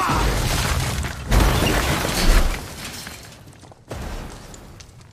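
Crash sound effects of an off-road buggy smashing down a rocky canyon: heavy crashing impacts with breaking and rumbling. A big hit comes about a second and a half in, and another sudden one near four seconds, before the crashing dies away.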